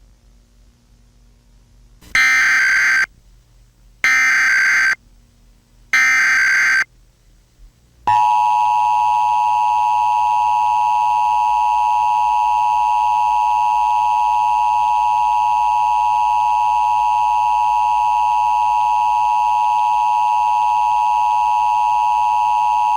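Emergency Alert System tones: three short SAME header data bursts, each about a second long and a second apart, then about eight seconds in the steady two-tone EAS attention signal, which sounds for about fifteen seconds.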